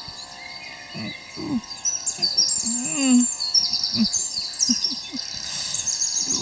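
An old man moaning and groaning in pain from a stomach ache: short low moans every second or so. Birds chirp and trill steadily in the background.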